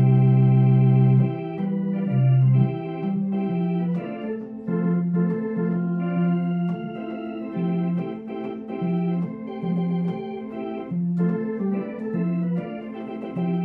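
Home electronic organ playing a blues, with sustained chords over a low bass note that repeats about once a second. A loud low note opens the passage.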